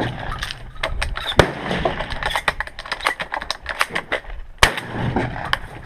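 Shotgun shells being pushed one after another through the loading gate into a shotgun's tube magazine during a timed reload: a quick run of clicks and metallic clacks. Two sharper, louder clacks come about a second and a half in and near the end.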